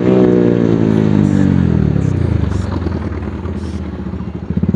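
Bajaj Pulsar 220's single-cylinder engine through an aftermarket SC Project exhaust, revs dropping away on a downshift. The exhaust note falls steadily in pitch over the first two seconds or so and fades.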